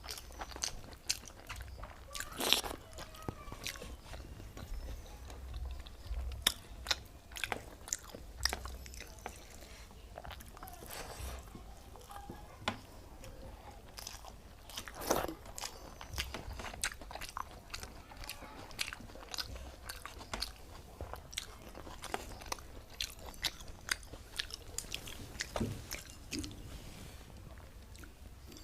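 Close-miked eating: a person chewing and biting a mouthful of rice with cauliflower curry, a string of irregular mouth clicks and crunches with a few louder ones.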